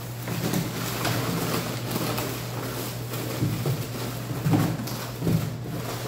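A steady low hum under scattered clicks and a few louder knocks and clatters from things being handled.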